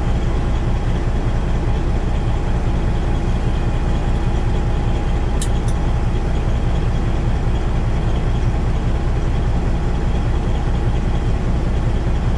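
Peterbilt semi truck's diesel engine idling steadily, heard from inside the cab, with two short sharp clicks about five and a half seconds in.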